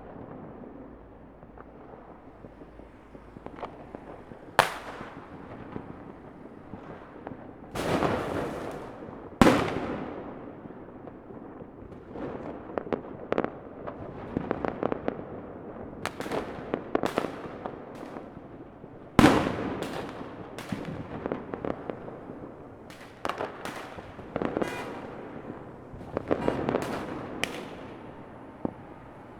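Fireworks going off: a run of sharp bangs, some single and some in quick crackling clusters, over a continuous background of more distant bangs. The loudest come about a third and two-thirds of the way through.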